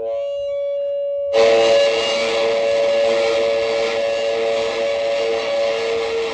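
Electronic noise music: steady droning tones, then about a second in a sudden, dense wall of harsh noise comes in, with the drone held beneath it.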